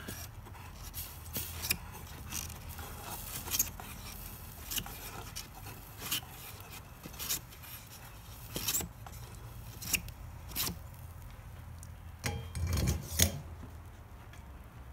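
Faint, irregular clicks and scraping as a soldering iron is worked along the lead seams inside a stained glass lamp shade. About twelve seconds in there is a louder stretch of rustling and knocking as the glass shade is lifted and turned in its box of tissue paper.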